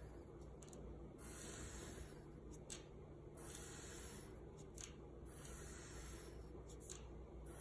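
Faint scratching of a pencil lead on paper as straight lines are drawn one after another. It comes as a series of strokes about a second long each, with small clicks between them as the pencil lifts and touches down.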